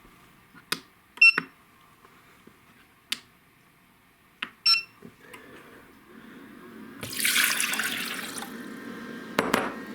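Clicks and two short electronic beeps from appliance buttons, then water poured into an electric hot pot for about a second and a half, over a low steady hum that sets in as it starts to run.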